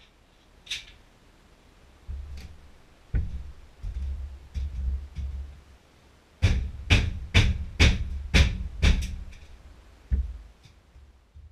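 A run of about eight sharp knocks, roughly two a second, after a stretch of low thuds and rumbling, with one last thud near the end.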